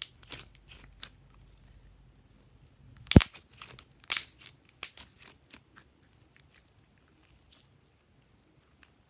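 Glossy clear pink glitter slime squeezed and kneaded by hand, giving sticky clicks and pops, the loudest pop about three seconds in. The sounds thin out over the last few seconds as the slime is stretched.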